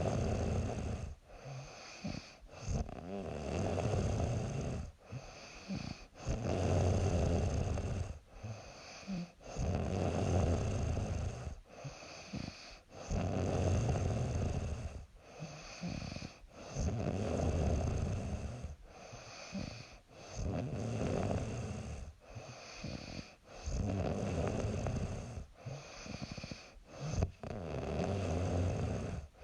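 A young woman snoring in her sleep, a rough snore on each breath recurring about every three seconds.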